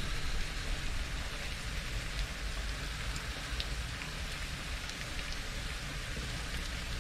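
Ground lamb and chopped vegetables sizzling steadily in a frying pan, with scattered light crackles.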